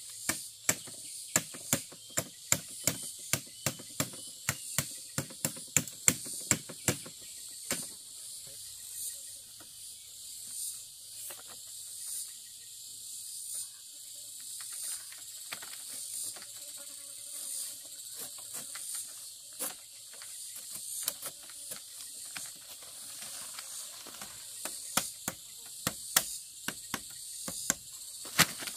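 Bamboo strips clacking and clicking as they are woven into a mat by hand: a quick run of sharp clacks, about two a second, for the first seven seconds, then scattered clacks, with a few more near the end. Forest insects shrill steadily throughout.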